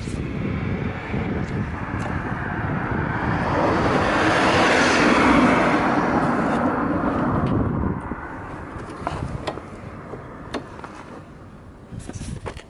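Early Yamaha RZ250R's two-stroke parallel-twin engine running after long storage. The revs rise to a peak in the middle and fall away suddenly about eight seconds in, followed by a few sharp clicks.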